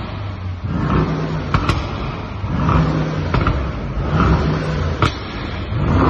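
Brabus Rocket 900's twin-turbo V8 (a tuned Mercedes-AMG GT63) being revved while stationary in short repeated blips, about one every second and a half, with a sharp crack from the exhaust between several of them.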